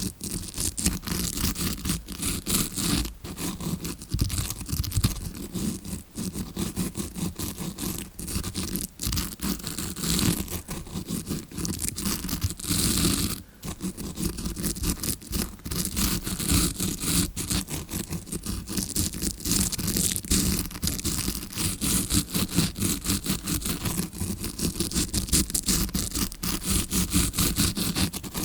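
Bristles of a tawashi scrubbing brush scratching rapidly and continuously, imitating ear cleaning as heard from the eardrum side. There is a brief break about halfway through.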